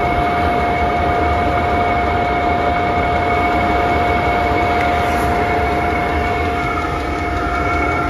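All-in-one diesel heater running steadily: a constant whine from its blower over a steady rush of air.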